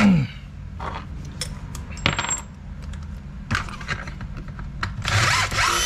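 Small metal parts clinking and rattling as they are handled and set down. There is a brief metallic ring about two seconds in and a denser rattle near the end, over a steady low hum.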